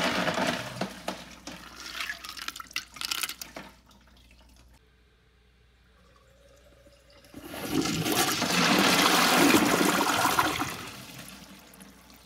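Toilet flush tailing off into trickles of water, then a few quiet seconds, then the toilet flushed again about seven seconds in, the rush of water easing off near the end.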